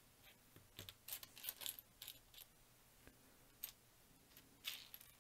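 Faint, scattered clicks and light rattles of small plastic building bricks being handled and pressed together, with a cluster of clicks between about one and two and a half seconds in.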